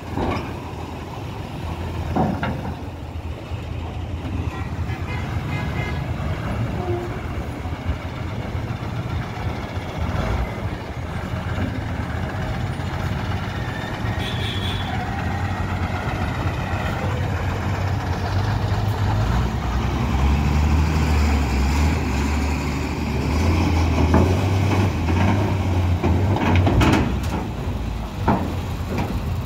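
Heavy diesel trucks and a bus driving across a ferry landing's steel ramp, their engines a low steady drone that builds as a truck pulls close in the second half. A few sharp knocks are heard, one about two seconds in and one near the end.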